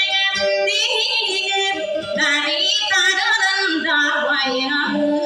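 A woman singing a Maranao dayunday song with a wavering vibrato, to acoustic guitar accompaniment.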